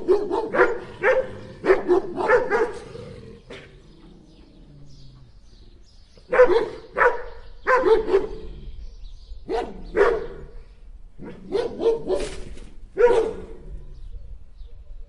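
Two dogs barking: a fast run of barks at the start, a pause of about three seconds, then single barks and short runs of two or three.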